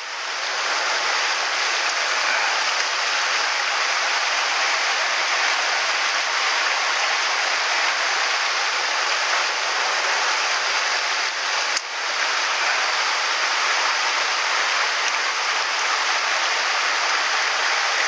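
Shallow mountain stream rushing steadily over stones and around the legs of a wading angler.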